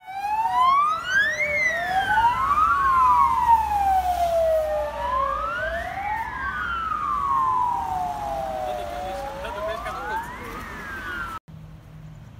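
Emergency vehicle siren wailing in slow rising and falling sweeps of about four seconds each, with a second overlapping wail at first and a low vehicle rumble as it passes; the sound cuts off abruptly near the end.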